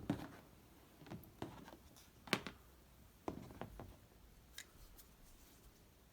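Side cutters snipping through thin low-voltage Christmas-light wire: a few short, sharp clicks spread over several seconds, the loudest about two seconds in.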